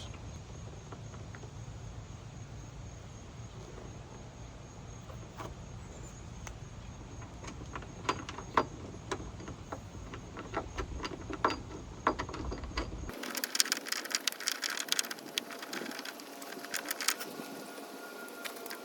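Light, irregular clicks and taps of small metal hardware being handled as a nut is lined up and threaded onto a hood-latch mounting bolt, growing more frequent about two-thirds of the way through.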